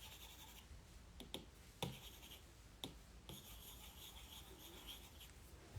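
Faint scratching of a stylus tip drawing strokes across an iPad's glass screen, with a few light taps of the tip on the glass in between.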